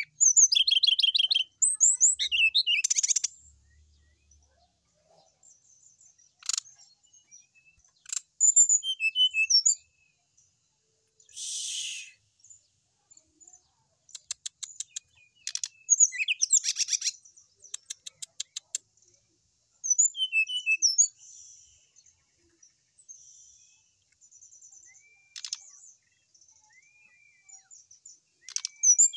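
Brown-chested jungle flycatcher singing in bouts of rapid, varied chirps, trills and clicking runs, with short pauses between bouts. This is the full, mimicry-packed song that keepers call 'gacor full isian'.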